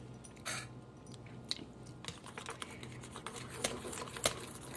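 Small wire whisk beating a thin glaze in a stainless steel bowl: rapid light clicking and scraping of the wires against the metal, starting about two seconds in.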